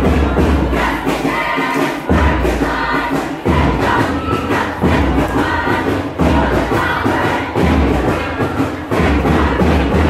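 Bench cheering squad singing and chanting a cheer together in unison, over a heavy low beat that returns about every one and a half seconds.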